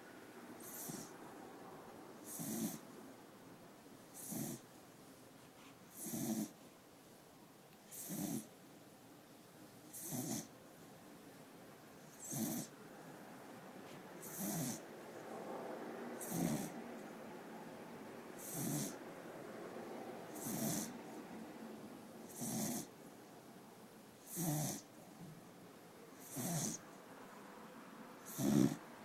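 An old cocker spaniel snoring in its sleep, one snore about every two seconds, each with a low rasp and a hissy edge.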